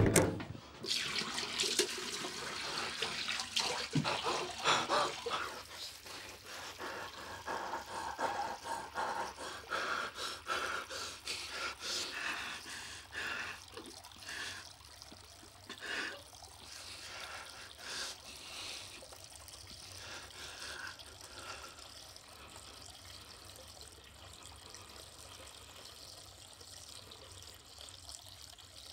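Water from a tap running into a sink, with irregular splashing that is loudest over the first half and then settles into a softer, steadier run.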